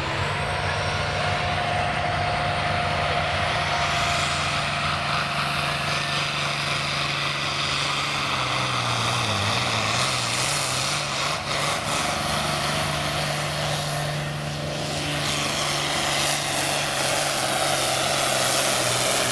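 Diesel John Deere pulling tractor running flat out under load as it drags a weight sled, a steady loud engine drone; the engine speed sags briefly about nine seconds in and then recovers.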